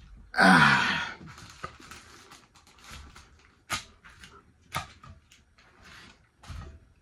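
A man's loud, falling groan of an exhale, out of breath after speed-eating, followed by quieter breaths. Later come a few sharp clicks and knocks as a plate on the table is handled and picked up.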